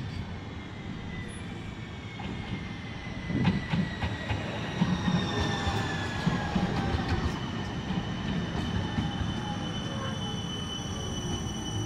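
Siemens Avanto tram-train running past close by, its electric drive whining in several tones that slide down in pitch, over wheel-on-rail rumble and knocks that grow louder from about three seconds in.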